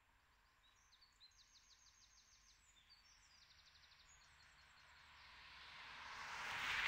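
A small songbird sings a few quick trilled phrases. A vehicle then approaches on a road, its engine and tyre noise swelling to the loudest sound near the end.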